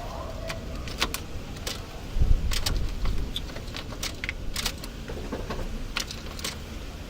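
Scattered light clicks and rattles over a steady low rumble, with a heavier thump about two seconds in.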